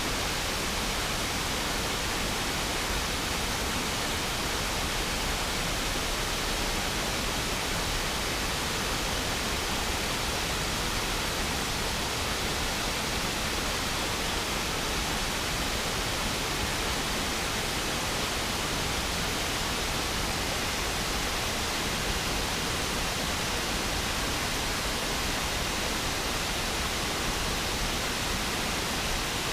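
River waterfall rushing steadily, an even wash of falling water that does not change.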